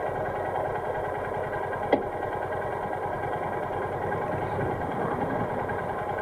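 Motorcycle engine running steadily, with one sharp click about two seconds in.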